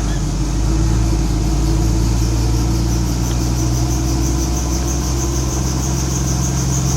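Helicopter running steadily: a constant engine hum with a fast, even pulsing in its high hiss.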